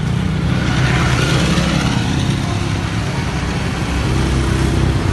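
A small engine running steadily, a low rumble with a fine flutter and no change in speed.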